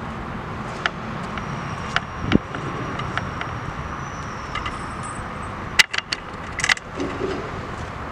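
Hot rod's 350 cubic-inch V8 with Thumpr cam, chromed headers and sidepipes, idling with a steady low rumble. A few sharp clicks and knocks sound over it, the loudest about six seconds in.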